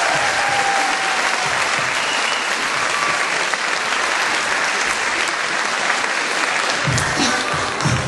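Theatre audience applauding loudly. About seven seconds in the clapping thins as the next music track starts.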